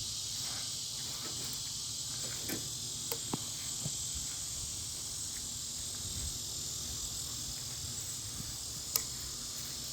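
Steady outdoor chorus of insects, typical of crickets, with a few faint clicks and one sharper click about nine seconds in.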